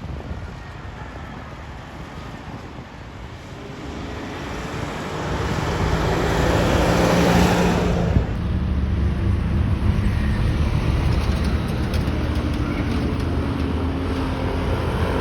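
A bus approaching and passing close, its engine and tyre noise growing to a peak about seven to eight seconds in, then an engine running steadily. No horn is sounded.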